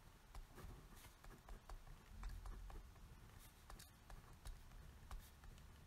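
Pen writing on a grid-paper pad: faint, irregular scratching and small ticks of the pen tip on the paper.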